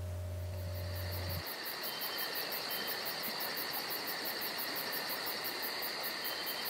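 Insects chirping: a very high pulse repeating about five or six times a second over a steady high-pitched buzz. A low hum cuts off about a second and a half in.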